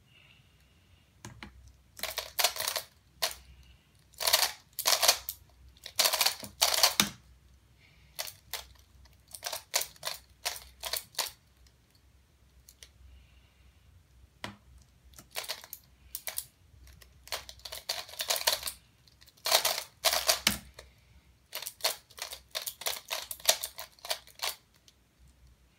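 Aoyan Skewb puzzle being turned fast by hand: runs of quick plastic clicks and clacks in several bursts, with short pauses between them.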